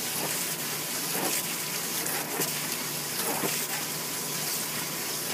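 Garden hose nozzle spraying water steadily into a shallow plastic paddling pool and over a small dog, a continuous hiss and splatter.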